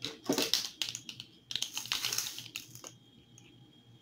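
Handling noise of ingredients being picked up from the table: a quick run of clicks and rustles that dies away about three seconds in.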